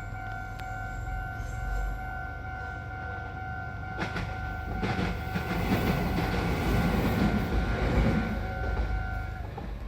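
Japanese level crossing's warning bell ringing steadily as a train passes over the crossing. The train's wheels rumble and clack from about four seconds in, and the bell stops just before the end.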